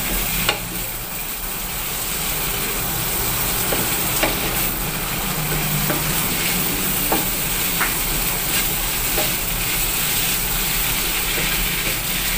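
Anchovies, tofu and chillies sizzling steadily in oil in a wok while being stirred with a wooden spatula, with an occasional click as the spatula knocks and scrapes against the pan.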